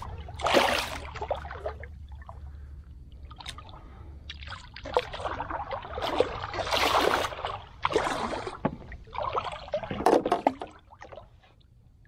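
Water splashing and sloshing in irregular bursts beside a paddleboard as a small hooked snook thrashes at the surface while being brought in.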